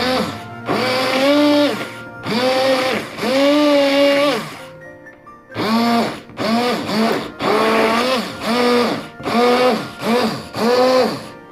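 Countertop blender pulsed in short bursts while blending fruit for juice. The motor whirs up in pitch, holds and winds down each time, a few longer pulses followed by quicker ones about two a second.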